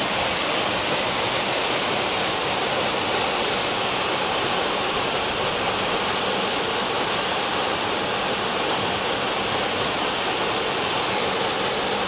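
Narrow waterfall pouring down a rock cleft into a pool: a steady rush of falling, splashing water.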